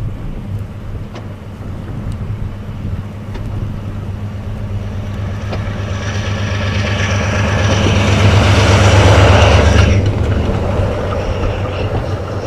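Diesel locomotive pushing a snow plow through deep snow as it approaches and passes: a steady engine drone swells, joined by a rushing hiss of thrown snow, loudest about nine seconds in, then falls away.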